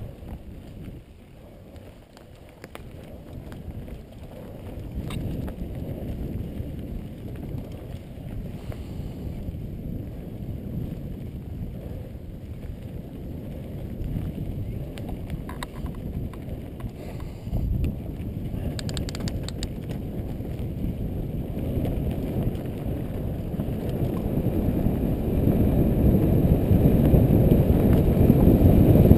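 Wind rumbling on a helmet-mounted microphone, together with the tyres and frame of a Specialized Demo 8.1 downhill mountain bike rolling and rattling over a dry dirt trail. It grows louder toward the end as the bike picks up speed, with a few sharp clicks about two-thirds through.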